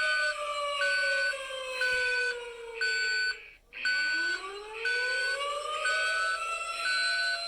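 Electronic emergency alert alarm: a short high beep repeating about once a second over a siren-like tone. The tone glides slowly downward, cuts out briefly about three and a half seconds in, then glides back up.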